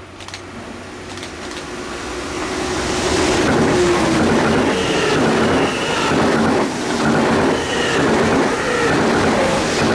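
ICE high-speed train passing at speed. It builds quickly over the first few seconds to a loud rushing of wheels on rail, with brief high-pitched tones and short dips in level as the coaches go by.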